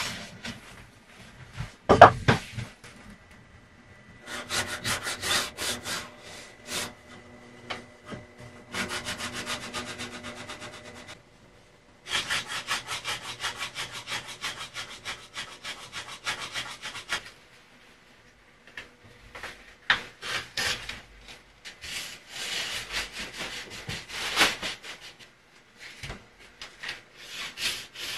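Hand tools working wood: runs of rapid, even back-and-forth strokes, like sawing or rasping, broken by short pauses. There is a sharp knock about two seconds in.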